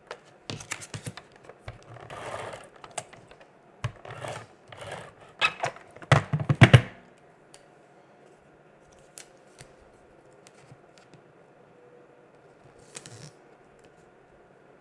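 Scotch Advanced Tape Glider adhesive gun being run along cardstock in several short rasping pulls, with clicks and knocks as it is handled. It is set down about seven seconds in, followed only by faint paper handling.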